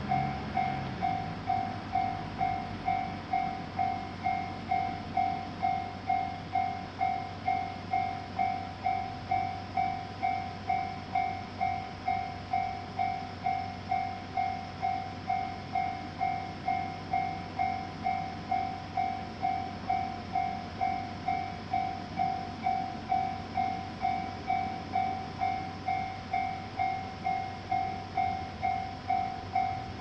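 Japanese railroad crossing alarm ringing its steady "kan-kan" bell tone, a little under two even strokes a second, each struck sharply and dying away: the crossing is warning of an approaching train. A low hum fades out about a second in.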